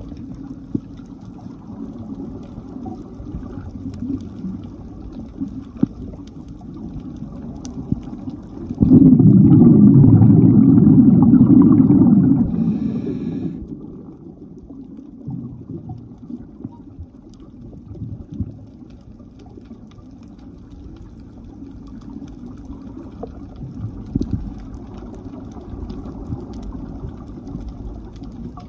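Underwater camera audio: a low, muffled rumble of the sea heard through the housing. About nine seconds in, a loud rushing burst lasts about four seconds and then fades away.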